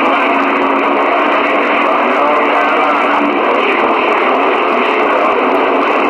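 Stryker SR-955HP radio receiver giving out loud, steady static through its speaker while its meter shows an incoming signal. A low steady tone sits under the static for about the first half, then stops.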